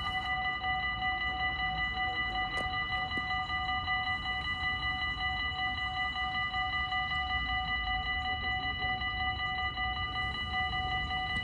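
Dutch automatic level crossing warning bells ringing steadily while the red lights flash and the half-barriers are down, the signal that a train is approaching.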